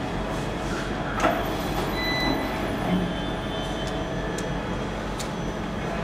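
Steady mechanical background noise with a low hum, and a few light clicks and knocks, the loudest about a second in.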